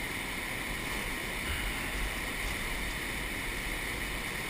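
Steady rushing of an underground stream flowing through a limestone cave.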